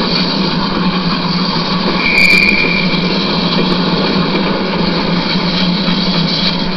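Model trains running on the layout's track: a steady hum and rumble of wheels and motor, with a brief high squeal about two seconds in.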